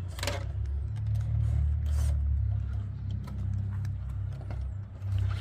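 Ecto RC rock crawler driving slowly down a steep turn on the course: a steady low motor hum, with scattered clicks and knocks of the tyres and chassis on the obstacles.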